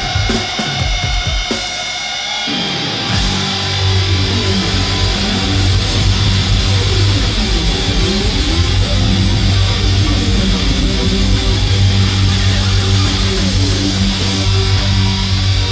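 Live heavy metal band playing with distorted electric guitars to the fore. About three seconds in, the band settles onto a sustained low chord, with bending, sweeping guitar lines over it.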